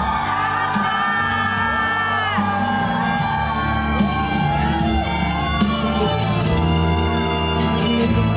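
A ballad trot song performed live in a large hall: long held, gliding sung notes over band accompaniment with a steady bass, and shouts from the audience mixed in.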